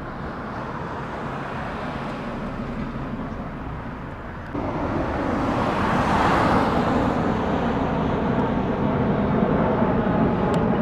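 Road traffic running steadily, growing louder about four and a half seconds in as a vehicle passes close by, then staying at a steady hum.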